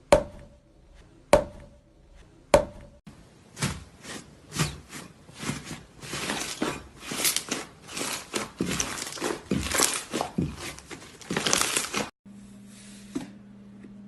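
Slime being pressed and squeezed by hand: three sharp pops about a second apart, then a dense run of crunchy crackling that stops abruptly near the end.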